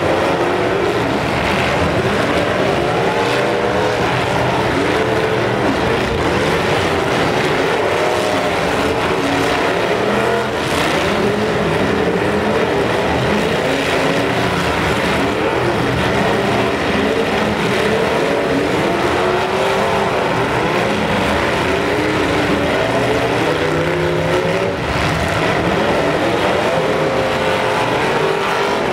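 Several demolition derby cars' engines revving hard at the same time, their pitches rising and falling over one another as the cars ram each other, with a few sharp crashes of metal-on-metal impacts.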